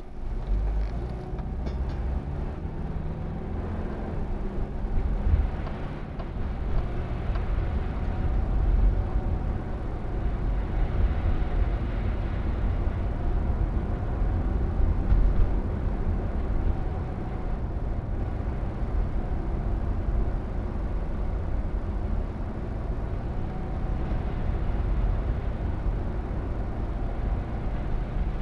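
Car's engine and road noise heard from inside the cabin: a steady low rumble as the car pulls away from a standstill and then cruises at about 20 mph.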